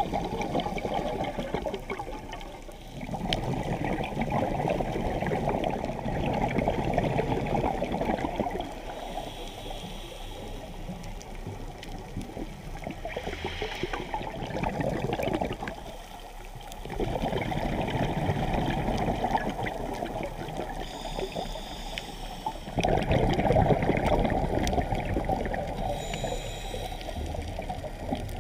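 Muffled underwater rumble of scuba exhalation bubbles heard through a camera housing, swelling and fading in surges of a few seconds with each breath.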